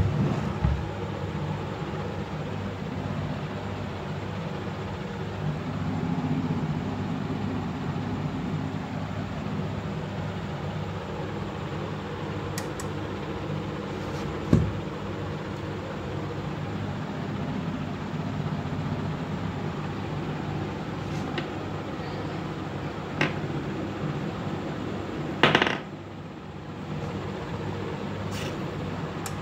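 Steady low machine hum, with a sharp knock at the start and a few lighter knocks and a short scrape later, as the metal controller case and its wiring are handled on a tabletop.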